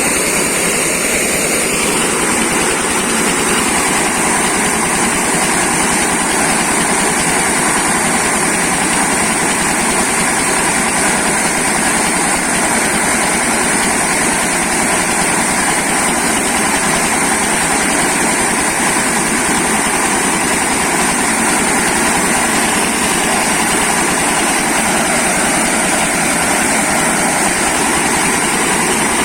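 Corn milling machine running steadily, a loud constant mechanical noise with a high steady hiss over it.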